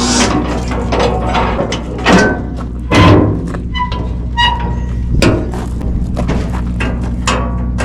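Steady engine drone inside a moving truck's cab, with music playing and repeated knocks and thumps throughout.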